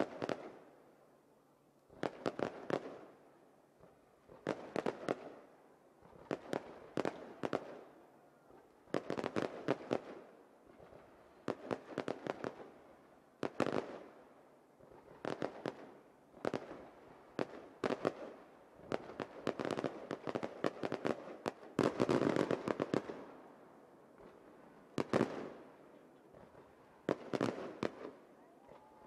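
Aerial firework shells bursting in quick volleys: clusters of sharp bangs every second or two, thickest about two-thirds of the way through.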